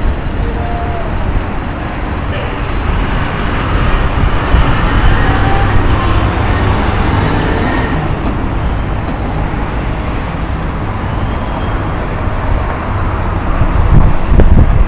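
Steady road-traffic noise from a busy multi-lane avenue: a continuous rush of passing cars and buses. Near the end, wind rumbles on the microphone.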